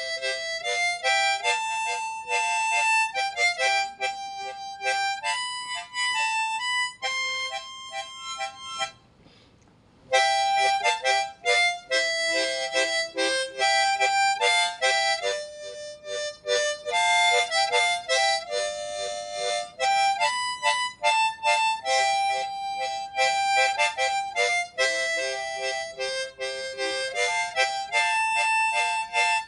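Hohner Marine Band 10-hole harmonica in the key of C playing a solo melody, a sequence of held notes, with a short break about nine seconds in before the tune resumes.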